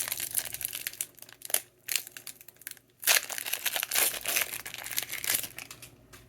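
Foil Pokémon booster pack wrapper crinkling and tearing as it is opened, in two stretches of crackling with a brief pause about halfway through.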